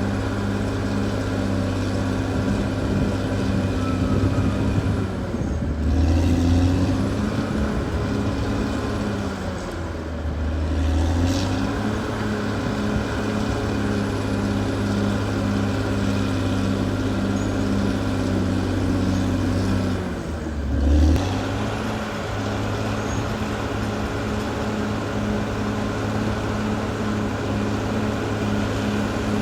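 Caterpillar D6R XL bulldozer's diesel engine running steadily, with a regular pulsing beat in its note. Three times it dips briefly and then swells with a deeper tone as the load on the machine changes.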